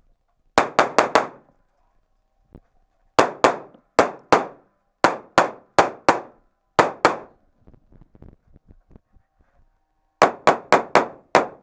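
Rapid pistol fire during an IPSC stage: about twenty shots in quick strings, mostly in pairs and threes, with four in fast succession near the start and a run of about six near the end. There is a short pause with faint clicks in the middle, and each shot rings on briefly off the rock walls of the tunnel range.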